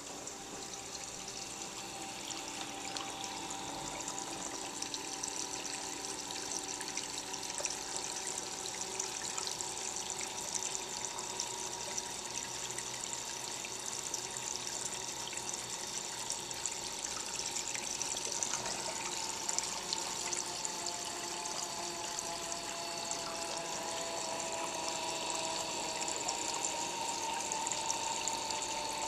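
Reef aquarium's water circulation running: a steady trickling and splashing of water, with a faint steady hum underneath.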